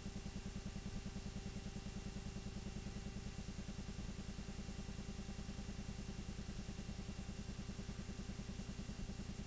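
8mm film projector running: a steady, rapid mechanical clatter with a low hum underneath, even throughout.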